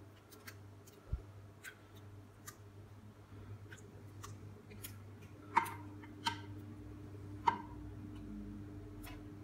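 A serving spoon tapping and scraping against a ceramic baking dish as meat sauce is spooned and spread over lasagne sheets: scattered light ticks, with a few sharper clicks in the second half, over a faint steady hum.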